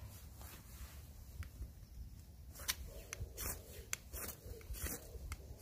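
Knife spine struck down a ferro rod several times to throw sparks onto tinder and light a campfire. Each strike is a short, sharp rasp, most of them in the second half, over a low rumble of wind on the microphone.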